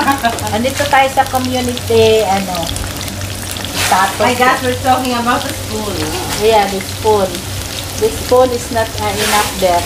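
Cauliflower florets and sliced onion sizzling as they fry in hot oil, with people's voices talking over it.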